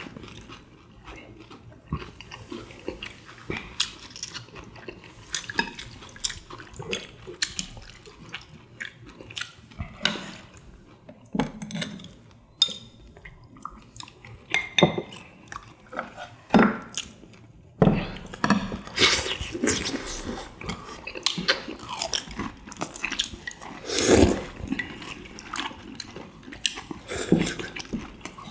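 Several people eating at a table: chewing, biting and slurping tteokbokki and fried chicken from bowls, with scattered chopstick and dish clicks that grow busier in the second half.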